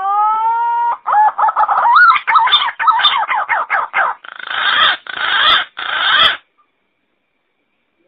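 Green pigeon (punai) song: a rising whistle that levels off, then a run of quick, wavering whistled notes, ending in three harsh, rasping notes. It stops a little after six seconds in.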